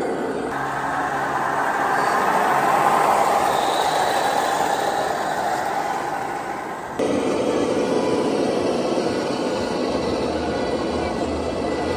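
Radio-controlled model fire trucks driving on an exhibition layout, giving a steady vehicle-like running noise with a loud hall ambience. The sound changes abruptly about seven seconds in.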